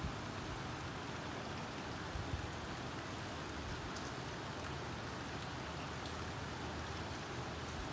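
Steady rain falling on a tiled rooftop terrace and its potted plants, an even hiss with a few faint single drop ticks.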